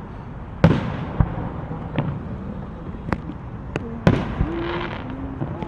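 Fireworks going off: a string of sharp bangs at irregular intervals over a steady background crackle, the loudest about half a second in and about four seconds in.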